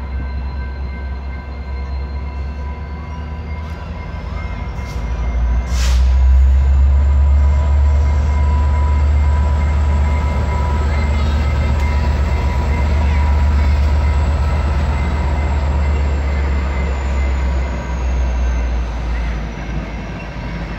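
Exo EMD F59PHI diesel locomotive passing at speed with its passenger coaches: a heavy engine rumble builds about five seconds in, then holds steady with the rumble of the coaches rolling by, and eases off near the end. There is a sharp bang about six seconds in, and a thin high whine that rises in pitch and later falls.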